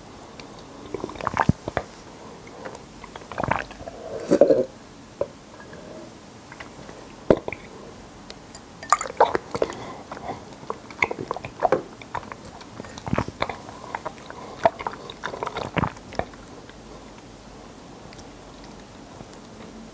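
Close-miked eating sounds of drinkable konjac jelly: irregular wet chewing and sharp mouth clicks with short pauses between them, going quiet for the last few seconds.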